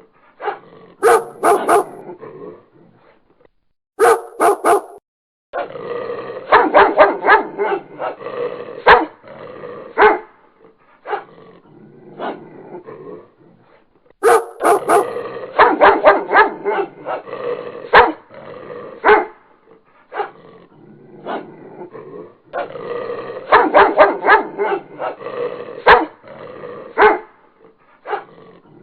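Dog barking in bursts of rapid, sharp barks separated by short pauses.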